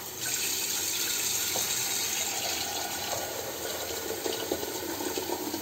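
Kitchen tap running in a steady stream into a stainless steel kettle, filling it.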